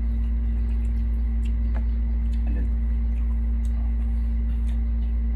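A steady low hum with one constant pitch, with a few faint sharp clicks and smacks of people eating with their hands.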